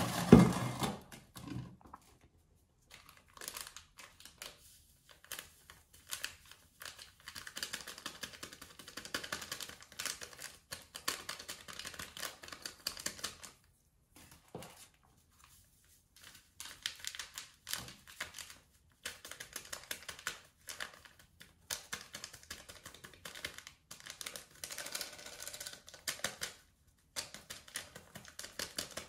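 A dull knock right at the start, then bursts of rapid light clicking and crinkling from yeast being mixed into warm water in a glass jug and a small yeast packet being handled.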